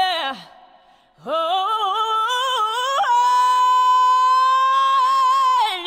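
A high-pitched voice singing. A wavering phrase slides down and breaks off just after the start. After a short gap a new wavering phrase jumps up about three seconds in to a long held high note, with a brief warble near the end.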